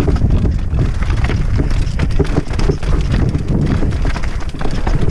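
Mountain bike rolling fast down rocky, gravelly singletrack, its tyres and frame clattering in irregular knocks and rattles, under a steady rush of wind on the microphone.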